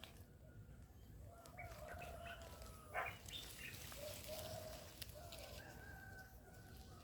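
A rooster crowing faintly, two long drawn-out crows one after the other, with small birds chirping and a sharp click about three seconds in.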